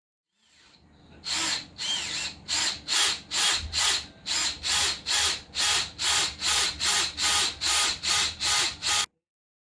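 Drill-type power tool run in short repeated bursts, about two a second, stopping suddenly near the end.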